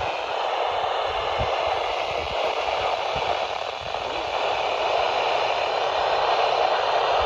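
Steady hiss of radio static from a radio receiver, with no voice coming through.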